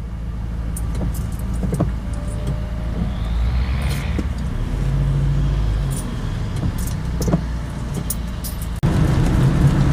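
Car driving: steady low road and engine noise with scattered small clicks and knocks, changing abruptly near the end.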